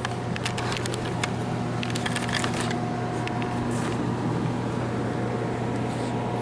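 Rustling with a quick run of light clicks for the first two to three seconds, over a steady low hum with a faint steady high whine.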